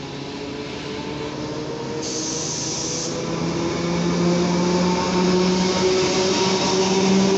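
Czech class 754 diesel-electric locomotive approaching and passing close by. Its engine drone grows steadily louder and edges up in pitch, with a brief hiss about two seconds in.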